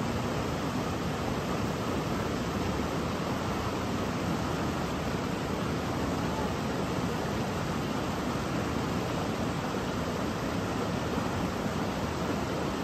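River rapids: fast water rushing steadily over rocks.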